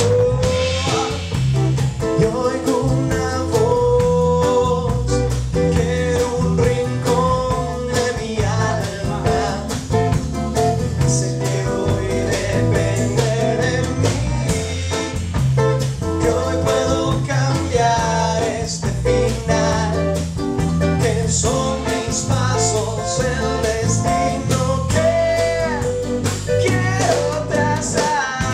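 Live acoustic rock song: a man singing over a strummed nylon-string classical guitar, a second acoustic guitar and an electric bass guitar.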